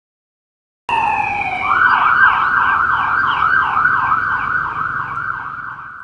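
Police siren passing by. It starts abruptly about a second in with a falling wail, then switches to a fast yelp sweeping up and down about three to four times a second over a low rumble, and fades away near the end.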